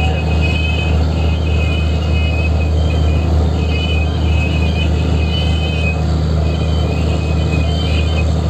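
Fishing boat's engine running steadily with a constant low drone.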